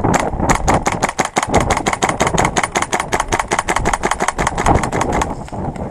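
Airsoft electric gun firing full-auto in one long burst, a rapid, even string of sharp shots over the whir of its gearbox motor, stopping about five seconds in.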